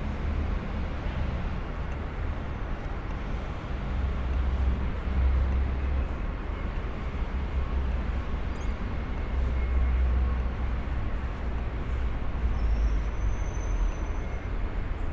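City park ambience: a steady wash of distant city traffic with an uneven low rumble, and a faint short high whistle about two thirds of the way through.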